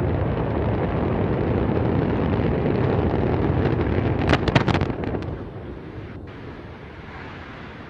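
Rocket launch rumble, loud and dense, broken by a quick cluster of sharp cracks about four and a half seconds in, after which the rumble drops away to a quieter steady noise.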